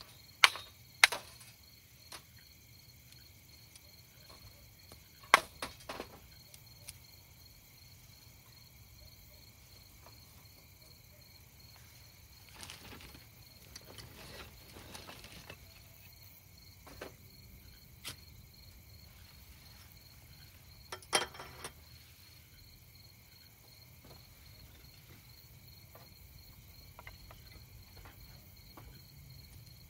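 Crickets chirping steadily, with a few sharp snaps of dry twigs being broken for kindling: several loud ones in the first second or so, more around five seconds in and again past twenty seconds. A plastic bag rustles about halfway through.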